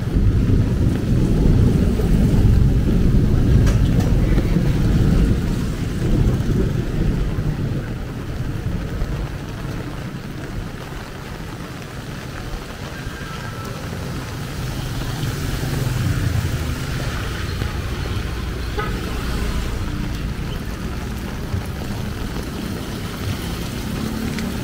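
Street traffic in heavy rain: a vehicle engine rumbles past close by for the first few seconds, then settles into a steady hiss of rain and tyres on the wet road.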